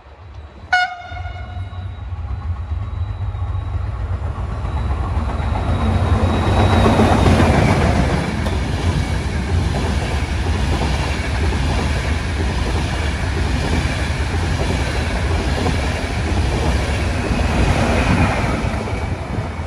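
A Euronight passenger train, sleeper coaches and an electric locomotive, passing through the station without stopping. A short horn toot about a second in, then a rumble and clatter of wheels over the rails that builds for several seconds and stays loud as the coaches go by.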